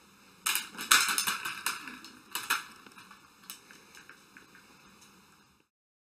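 A handheld cat toy rattling and crackling as it is shaken at a cat and swatted. It comes as a quick run of sharp clattering strokes starting about half a second in, loudest around one second, with another burst a little later and a few fainter clicks after. It cuts off abruptly near the end.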